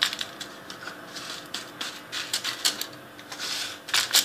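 Irregular soft crackling and clicking of a hand patting and pressing buttered Oreo cookie crumbs down onto aluminium foil in a pan.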